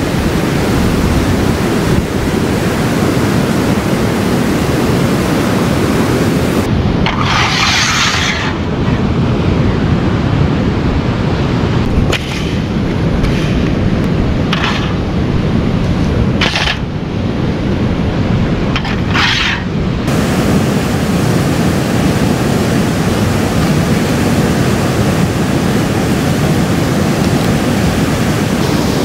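Steady rushing of a fast-flowing mountain river. A few brief knocks and rustles come through it in the middle.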